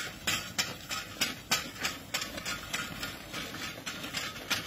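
Bullock-drawn mulch-laying implement moving along a bed: irregular clicking and rustling, about three clicks a second, from the bullocks walking and the implement laying plastic mulch sheet.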